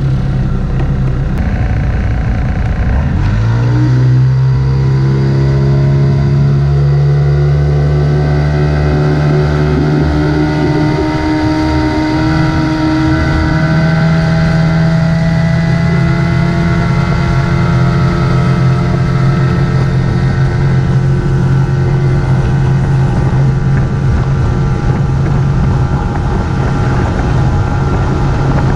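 Outboard motor driving a small skiff, throttled up about three seconds in so its pitch climbs over a couple of seconds, then running steadily at speed over the rush of water.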